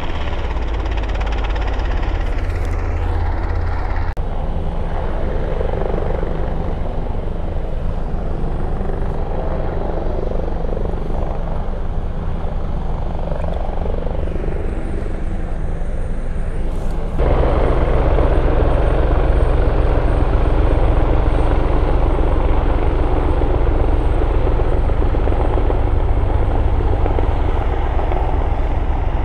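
Helicopter rotor and turbine engines running steadily and loud. The sound shifts abruptly about 4 s in and again about 17 s in, and is louder after the second shift.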